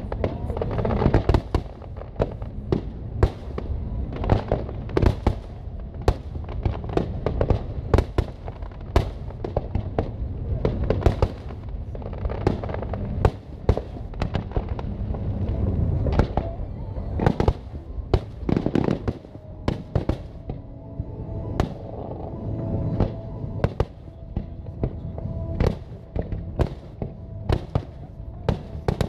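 Aerial firework shells bursting in rapid succession, sharp bangs coming one to several a second over a continuous low rumble, with music playing underneath.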